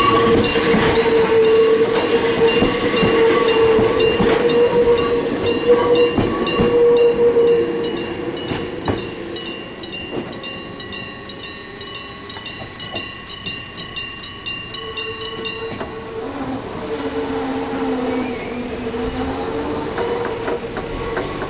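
Hokuriku Railroad 7000-series electric commuter train passing close over a level crossing and drawing away, its wheels squealing on the curve. A level-crossing alarm rings in an even beat of about two strikes a second until it stops about 16 s in.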